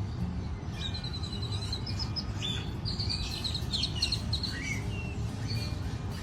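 Songbirds chirping and trilling, with quick rapid note runs and short glides, over a steady low rumble of background noise.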